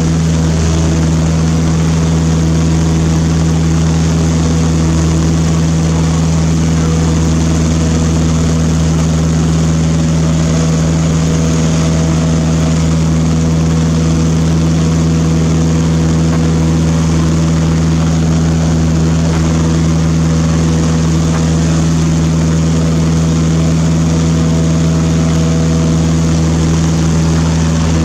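Cessna 152's Lycoming four-cylinder engine and propeller running steadily at cruise power, heard from inside the cabin.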